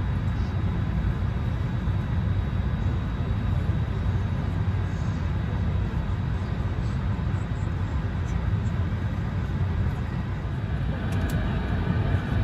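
Steady low rumble and hiss of an Airbus A220-300 cabin while the aircraft sits on the ground, the noise of its air conditioning. The sound shifts slightly near the end, with a few faint clicks.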